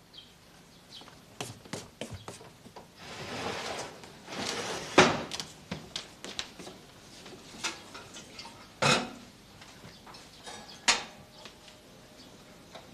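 A string of scattered clicks and knocks, with a short rushing noise partway through, like someone handling things in a room. The sharpest knock comes about five seconds in, with two more strong knocks near nine and eleven seconds.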